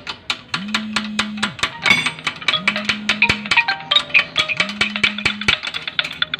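Background music with a quick, steady beat, a low held note repeating about every two seconds, and short plucked-sounding notes above it.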